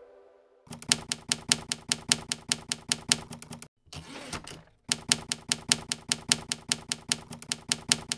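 Manual typewriter keys striking in quick succession, about six or seven a second, with a short break about four seconds in that holds a brief rasping sound before the typing resumes.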